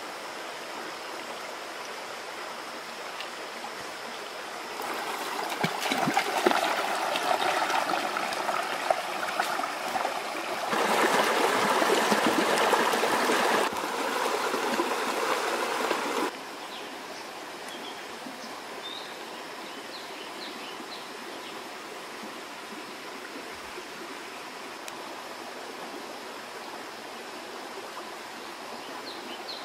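Running water of a shallow rocky forest stream, a steady rush that turns much louder for about eleven seconds in the middle and then drops back abruptly.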